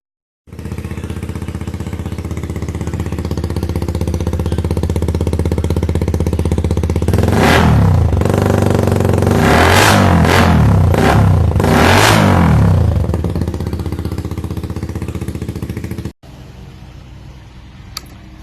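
Motorcycle exhaust through an aftermarket Daeng/Cha/Apido-style replica pipe: the engine idles, then is revved up and let fall back several times in quick succession. About 16 seconds in, the sound cuts abruptly to a quieter steady engine hum.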